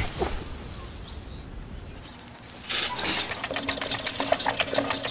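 Hamster's exercise wheel spinning: a fast, even rattle of small clicks over a steady hum, starting a little past halfway through after a quieter stretch.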